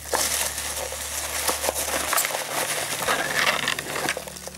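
Hands rummaging through foam packing peanuts in a cardboard box: a steady rustling with many small clicks and crackles.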